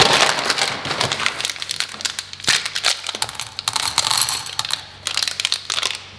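Foil candy wrapper crinkling and crackling as it is torn open by hand, a dense run of sharp crackles.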